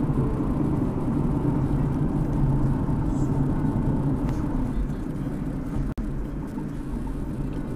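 Car driving along a paved road: a steady low rumble of engine and tyres, which cuts out for an instant about six seconds in.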